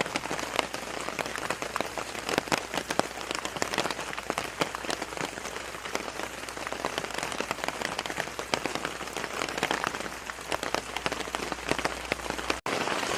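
Heavy rain falling steadily, a dense wash of noise with many separate drop hits. A momentary dropout near the end, after which the rain continues.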